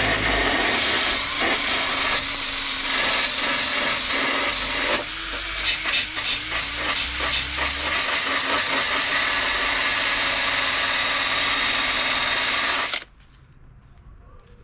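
A power tool scouring rust and paint off the steel of a car's inner wing panel, down to the bare metal. It runs loud and dense, wavers and eases for a few seconds midway as the load changes, then cuts off sharply near the end.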